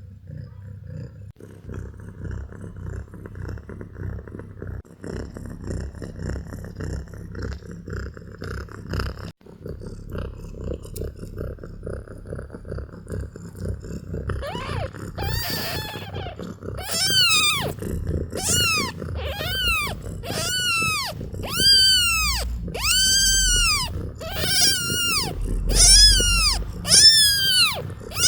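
A cat purring in a low, continuous rumble. From about halfway a kitten starts mewing over and over, roughly once a second, in high calls that rise and fall in pitch and grow louder.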